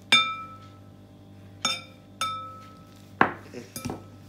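A small drinking glass clinks three times against the rim of a glass mixing bowl, each clink ringing briefly, while its contents are tipped in. Near the end come duller knocks and a clatter as a whisk goes into the bowl.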